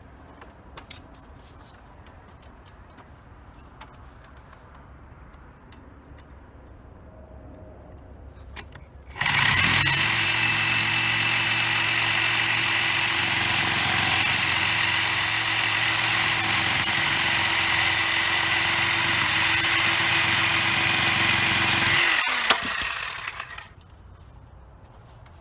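Power tool starts about nine seconds in, runs steadily at full speed for about thirteen seconds, then winds down to a stop.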